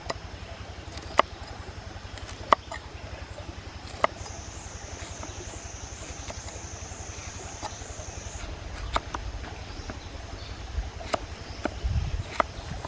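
Kitchen knife cutting through crisp long beans and cucumber held in the hand: a sharp snap every second or so, then a quicker run of lighter cuts near the end.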